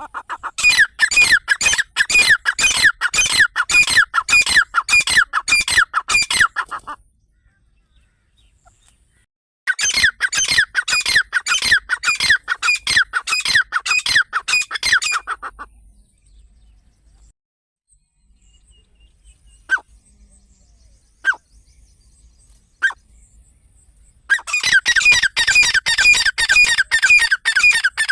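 Francolin (teetar) calling: long runs of loud, sharp, rapidly repeated notes, about three a second, in three bouts of around six seconds each. Three single notes stand alone in the quiet stretch before the last bout.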